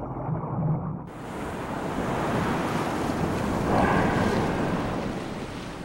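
Wind buffeting the microphone over choppy sea waves, with a humpback whale's blow, a rushing exhalation, swelling about two-thirds of the way in.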